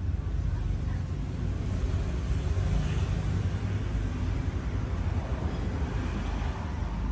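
Steady low background rumble with a faint hiss, unchanging and with no distinct events.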